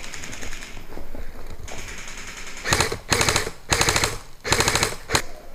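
Airsoft rifle firing on full auto: a rapid rattle of shots in several short bursts in the second half, with fainter rapid fire earlier.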